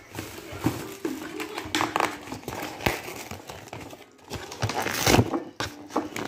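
Tissue wrapping paper crinkling and rustling in irregular bursts as a framed mirror is unwrapped and handled, with a few light knocks.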